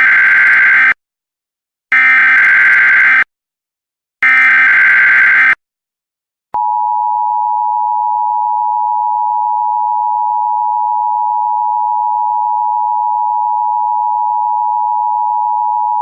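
Emergency Alert System data header: three short, loud buzzing bursts of data tones, each about a second long and a second apart, then, about six and a half seconds in, a steady two-tone EAS attention signal that holds without change.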